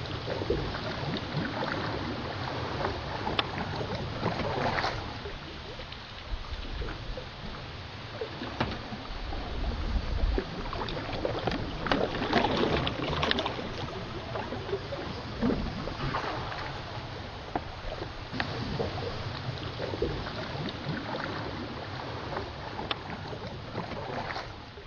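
Canoe paddles dipping and splashing in the water as open canoes are paddled along, with irregular splashes and a low rumble underneath; the sound cuts off abruptly near the end.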